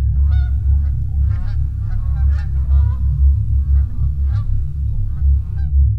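A flock of geese honking in flight, many overlapping calls that stop shortly before the end, over a steady low rumble.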